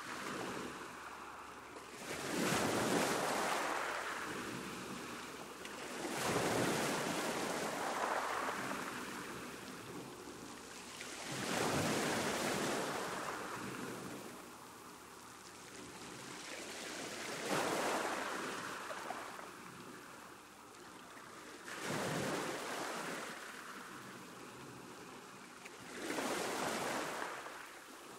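Sea waves breaking on the shore: six surges of surf, each swelling quickly and fading over a few seconds before the next.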